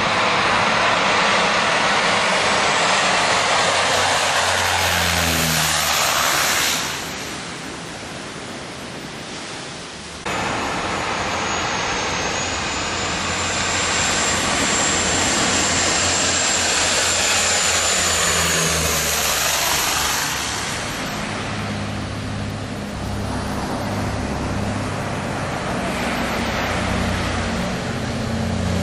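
Small twin-engine propeller planes passing low overhead on landing approach, their engine drone swelling and fading as each goes by, over surf and wind noise. The sound cuts off abruptly about ten seconds in and starts again at full level, and near the end the quieter part has low wind rumble on the microphone.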